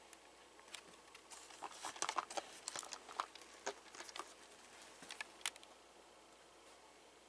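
Irregular light clicks and rustling from a 2007 Hess toy monster truck being handled, bunched between about one and five and a half seconds in, the last click the sharpest.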